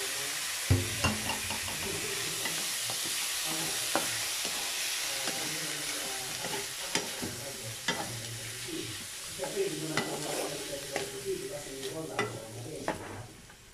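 Diced pork belly sizzling in a hot nonstick wok as a wooden spatula stirs it, with a steady hiss and irregular light knocks and scrapes of the spatula on the pan; the loudest knock comes about a second in.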